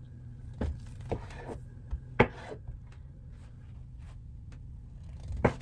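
Kitchen knife slicing through a soft rolled dough log and knocking on the cutting board: a few short knocks in the first two seconds, the loudest a little after two seconds in, and one more near the end, over a low steady hum.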